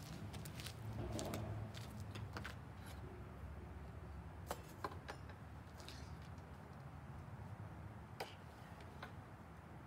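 Small clicks and light knocks of tools and nails being handled on a wooden-topped cart, a handful scattered through, two close together about halfway, over a steady low background rumble.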